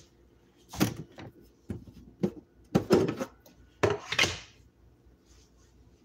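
A run of sharp knocks and clatters from household objects being handled, about ten in four seconds, the loudest near the middle, then they stop.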